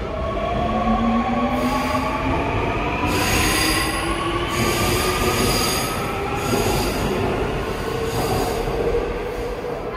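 Seoul Line 2 subway train accelerating, its electric traction motors whining in several tones that rise steadily in pitch, with rail noise and a few short bursts of high squeal from the wheels.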